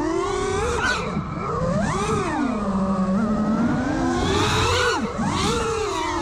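Brushless motors of a 5-inch FPV freestyle quadcopter (1960KV on 6S) spinning Gemfan Sbang propellers, heard from the onboard action camera: a buzzing whine that rises and falls in pitch with throttle. It sinks low around the middle and climbs again in quick punches near the end.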